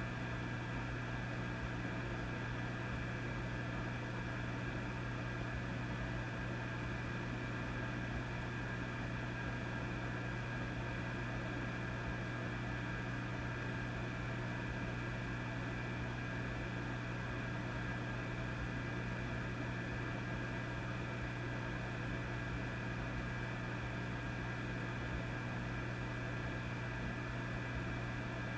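Vintage tube amplifier humming steadily: a low hum with a ladder of higher overtones, under an even hiss of static.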